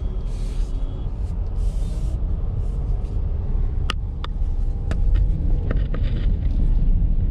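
Car driving on a road, heard from inside the cabin: a steady low rumble of engine and tyre noise, with a few sharp clicks about halfway through.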